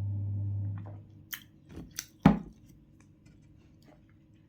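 Eating noises: a few short, sharp bites and clicks, with one louder knock a little after two seconds. A steady low hum stops about a second in.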